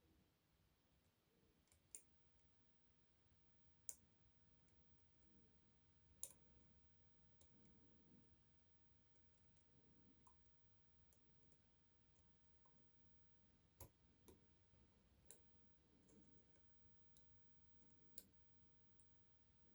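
Faint, scattered clicks of lock-picking tools working the pin stack of an Adamant spinning-key lock held under heavy tension, about seven or eight clicks spread irregularly with quiet between them.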